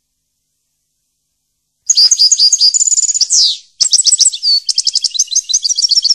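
A songbird singing: about two seconds in, a fast, high warbling phrase of trills and rapid repeated notes ending in a quick downward sweep, then after a short break a second phrase of rolls and rapid notes.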